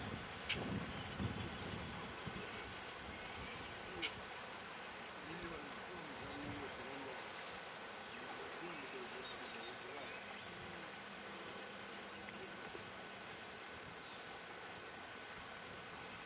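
Steady, high-pitched drone of an insect chorus. A few soft thumps come in the first second or two, and a sharp click about four seconds in.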